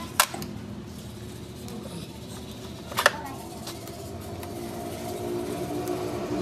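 Sharp metallic clicks of circlip pliers and a pick working on a truck gearbox mainshaft and synchro hub: one near the start and a quick double click about three seconds in. Under them runs a steady mechanical hum that grows louder near the end.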